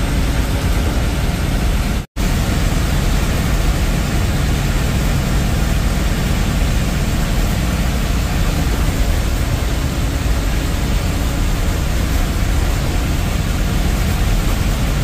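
Engine and road noise inside a moving bus's cabin, a steady loud drone, with a brief break about two seconds in.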